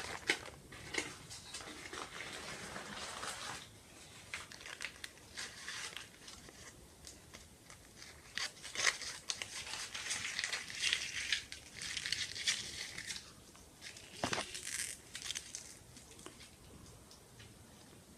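Plastic being crinkled and crumpled close to the microphone in irregular crackling bursts, busiest in the first few seconds and again in the middle, with a sharp click about fourteen seconds in.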